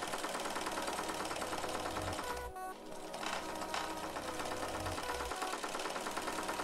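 Older electric sewing machine running steadily, its needle stitching rapidly through a cotton T-shirt, with background music.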